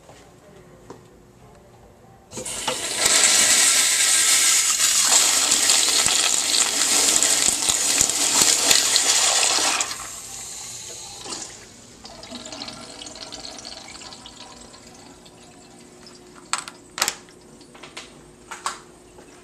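Commercial toilet with a chrome lever flushometer valve flushing: a sudden loud rush of water starts about two seconds in, lasts about seven seconds, then drops off abruptly to a quieter trickle that fades. A few sharp clicks come near the end.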